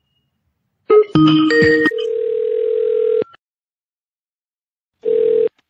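Web phone call connecting: a quick chime of electronic tones about a second in, then a steady ringing tone for about a second and a half, a pause, and a short burst of the same tone near the end.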